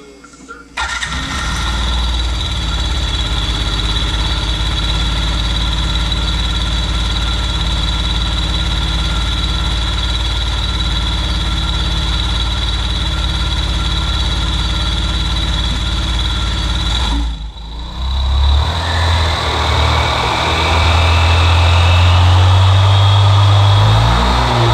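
Yamaha Zuma 50's four-stroke engine starting about a second in and idling steadily on a test run after a new transmission belt and rollers were fitted. Near the end the sound breaks off and the engine runs faster and louder, with a rising whine.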